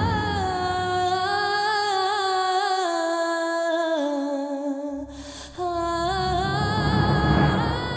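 Music with a woman singing a slow melody that steps downward in pitch, pausing briefly about five seconds in before going on; low drums sound under it at the start and again in the last few seconds.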